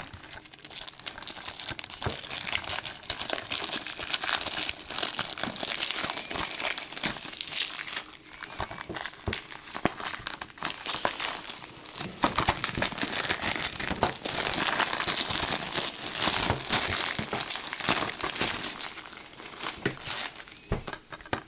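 Plastic shrink wrap being torn off a Blu-ray case and crumpled in the hands: continuous crinkling with scattered sharp crackles, easing briefly about eight seconds in and loudest around fifteen seconds in.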